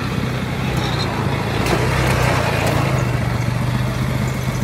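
Small automatic ATV (quad bike) engine running steadily as it drives along a dirt track, a low even hum that swells a little about two seconds in.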